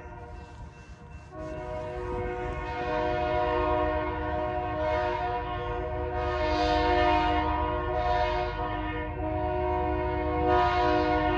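Freight locomotive's air horn sounding a steady multi-note chord for a grade crossing, breaking off briefly about a second in and then held without a break, swelling louder several times.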